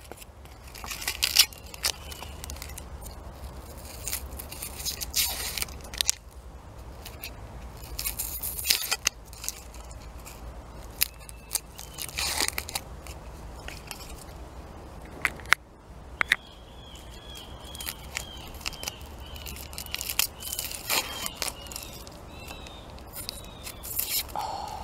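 Close-up crackling, tearing and rustling of a raw onion's dry papery skin as it is handled and peeled, in many short sharp bursts. There are thin squeaks about two-thirds of the way in.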